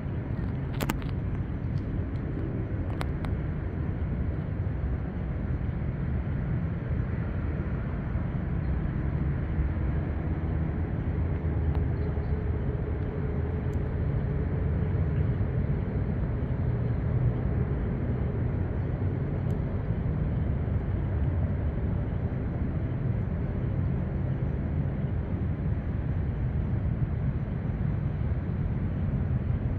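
Steady low rumble of distant traffic, with a couple of faint clicks about one and three seconds in.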